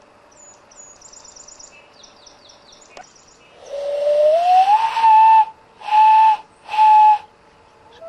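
Common loon wailing: one long note that slides up and levels off, then two shorter held notes at the same pitch.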